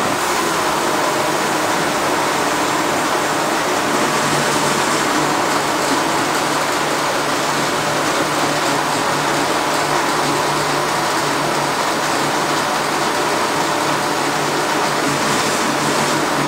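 Electric countertop blender running steadily, puréeing corn kernels into a thick batter for pamonha.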